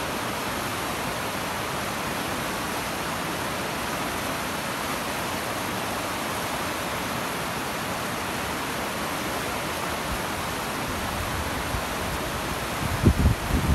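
Rocky stream rushing over boulders and small rapids: a steady hiss of running water. Near the end, gusts of wind buffet the microphone with low rumbles.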